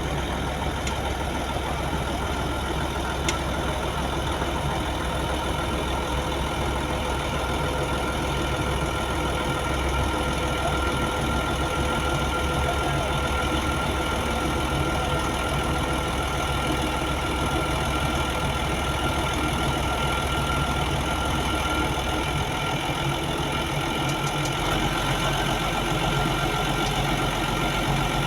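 Diesel engine of heavy construction machinery running steadily, with a steady whine above it; the deepest part of the engine note changes about two-thirds of the way through.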